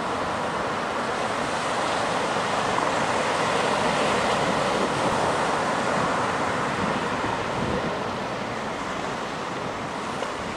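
Ocean surf breaking and washing up a sandy beach, a steady rushing that swells a little partway through, with wind buffeting the microphone.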